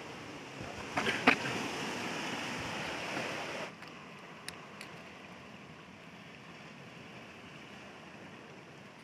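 Steady rushing wash of sea surf, with two sharp knocks about a second in. Just before four seconds it drops suddenly to a quieter steady hiss with a few faint clicks.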